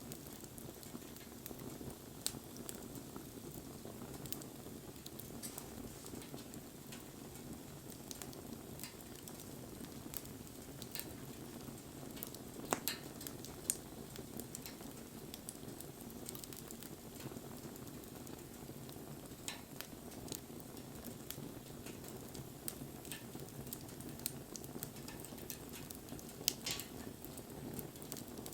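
Wood fire burning, with frequent sharp crackles and pops over a steady low background; the loudest pops come about halfway through and near the end.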